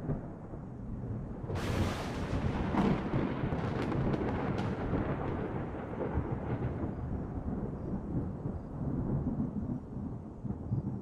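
Opening of a rock song's soundtrack: a rumbling, thunder-like wash of noise with no clear melody, a hissing swell about one and a half seconds in and a few crackles over the next few seconds.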